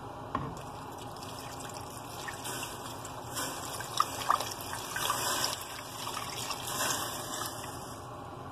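Water poured from a jug into a stainless steel saucepan of dried guajillo and ancho chiles, splashing over the chiles. The pour starts about two seconds in and tails off near the end.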